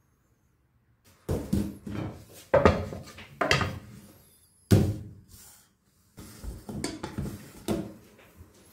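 A series of wooden knocks and thuds, irregular and about a dozen in all, starting about a second in: a wooden sushi rice tub (hangiri) and its wooden rice paddle being set down and handled on a steel counter.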